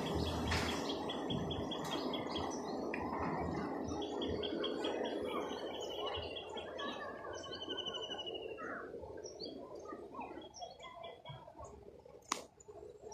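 Several birds chirping and trilling, with rapid runs of repeated high notes, over a low rushing noise that fades away. A single sharp click near the end.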